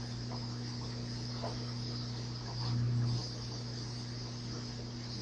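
Steady low electrical hum under a constant high hiss, the noise floor of a recording microphone, with a brief louder swell of the hum about three seconds in.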